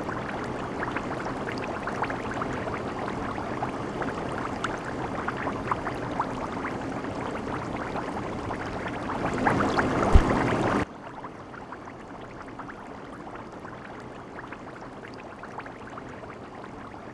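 Red chili-oil Sichuan hot pot broth boiling hard, a dense bubbling with many small crackling pops, with one low thud shortly before it cuts off abruptly about two-thirds of the way through, leaving only a quiet steady hiss.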